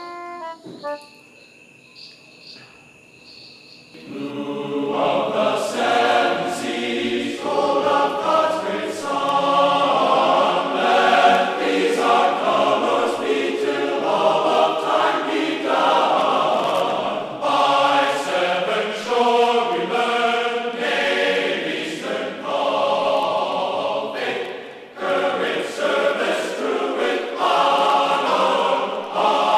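Soundtrack music: a few quiet held tones, then choral singing comes in about four seconds in and carries on.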